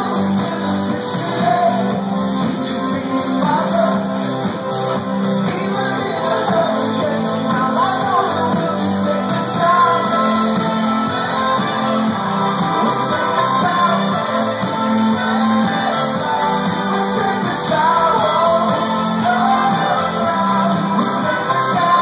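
Live band playing loudly through a venue's PA: lead vocals over electric guitar, keyboards, bass and drums, with a steady beat.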